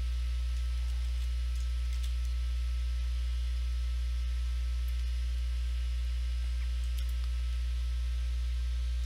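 Steady low electrical mains hum from the home recording setup, with its overtones and a faint hiss above it.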